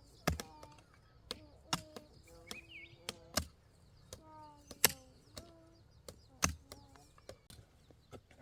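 Irregular chopping strikes, a sharp blow every half second to second and a half, with soft pitched animal or bird calls between them.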